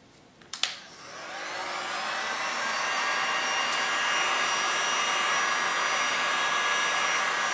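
A click, then an electric heat gun's fan spins up and runs with a steady rushing blow and a faint high whine.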